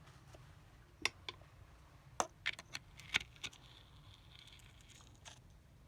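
A handful of sharp, scattered metallic clicks and clinks as engine parts and tools are handled, over a faint steady hum.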